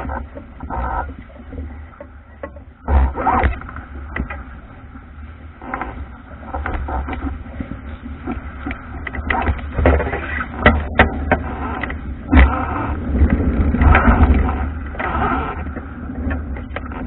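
Water rushing and splashing along the hull of a wooden Albacore sailing dinghy driving fast through chop, with irregular knocks and slaps as the bow meets waves. A steady low rumble of wind buffets the microphone.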